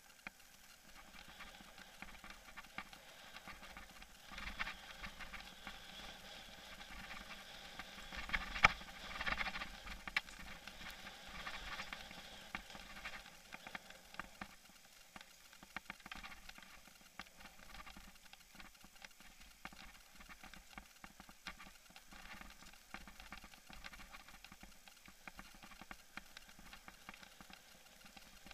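A camera rattling in its mount as a mountain bike rides over a bumpy dirt singletrack: a steady patter of small clicks and knocks. The rattling is louder for several seconds in the first half, with one sharp knock about eight and a half seconds in.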